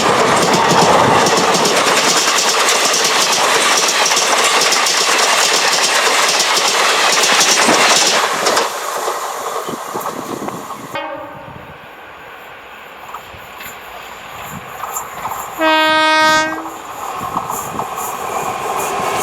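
A train passing close at speed, wheels clattering over the rail joints, dies away after about eight seconds. Then, in a quieter stretch, a WAM4 electric locomotive gives one short, steady horn blast about 16 seconds in.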